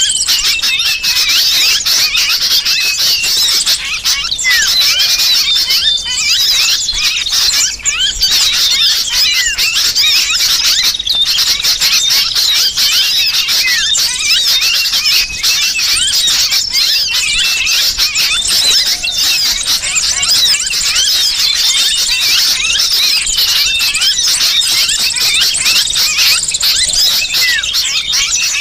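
Bird-trapping lure recording: a dense, unbroken din of many small birds chattering in alarm, mixed with the distress calls of a sooty-headed bulbul that has been caught. The calls are countless short, high chirps overlapping one another at a steady, loud level.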